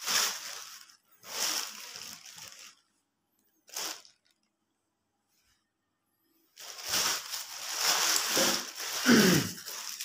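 Thin plastic shopping bag rustling and crinkling as it is handled, in several bursts with a longer stretch near the end. Near the end there is also a short, louder sliding squeak.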